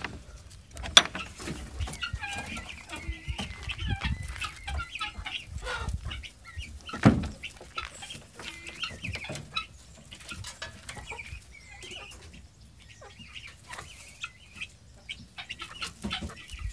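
Chickens and guinea fowl clucking and calling in many short, repeated calls. A sharp click comes about a second in, and a louder thump about seven seconds in.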